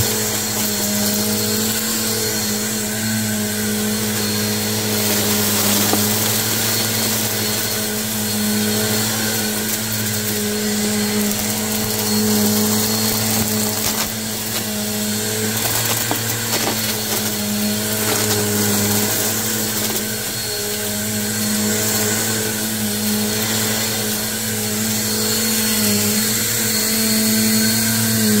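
Bissell Purple Helix upright vacuum cleaner running steadily over carpet into a pile of lint: a low motor hum with a thin high whine over the rush of air.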